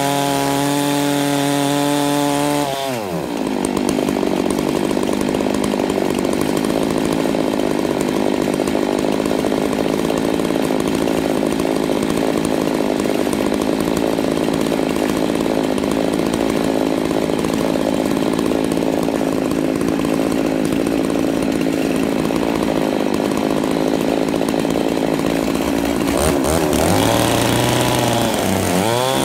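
Stihl MS880 and MS660 chainsaws driving a double-ended chainsaw mill through a large oak log. The engine note drops sharply about three seconds in and runs lower and rougher while the chain cuts, then climbs back up near the end.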